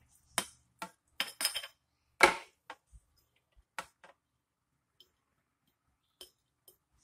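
A metal serving spoon clinking and knocking against a glass bowl and jar while shredded cabbage curtido is scooped into the jar: a string of separate clinks, most in the first four seconds, the loudest about two seconds in.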